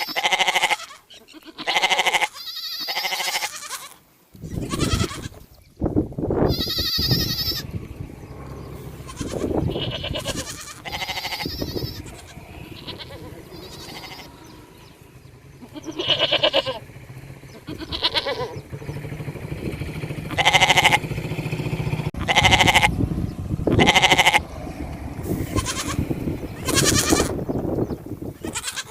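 Sheep bleating over and over, many separate calls one after another, with a steady low rumble underneath from about four seconds in.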